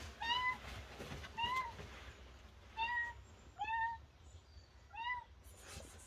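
Five short, high meows about a second apart, each rising and then falling slightly in pitch, like a kitten mewing.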